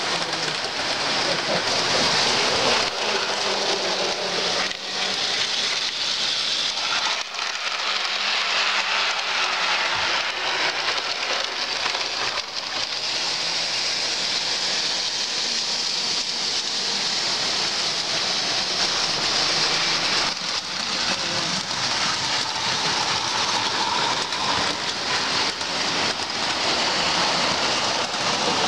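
O scale model trains running on two-rail track: a steady rolling noise of wheels on rail.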